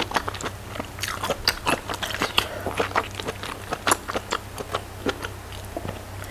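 Close-up chewing and wet mouth clicks of a person eating goat meat, many short smacks in an uneven rhythm, picked up by a microphone clipped near the mouth.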